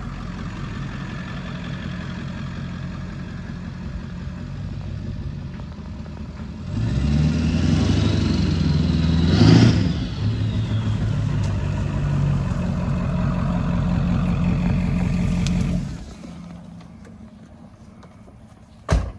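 Ford F-250's 7.3-litre turbo diesel V8 running as the truck drives on grass. It gets louder about seven seconds in as the truck pulls past, then cuts off about sixteen seconds in. A single sharp thump near the end.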